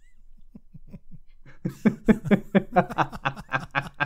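Men laughing: a few soft, breathy huffs, then rhythmic laughter from about a second and a half in.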